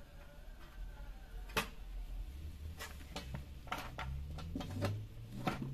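Scattered clicks and light metallic knocks as wiring is handled inside an opened toaster's sheet-metal base, the sharpest about one and a half seconds in.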